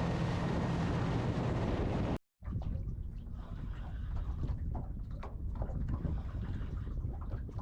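Boat engine running under way with wind on the microphone, cut off abruptly about two seconds in; after that, wind buffeting and water sounds with small scattered knocks.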